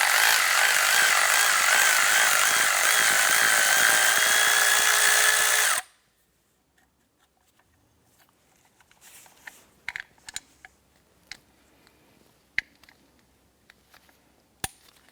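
Power tool running steadily with a wavering whine for about six seconds, backing off the screw of a spring compressor to release a door hinge spring, then cutting off abruptly. Light metal clicks and taps follow as the parts are handled.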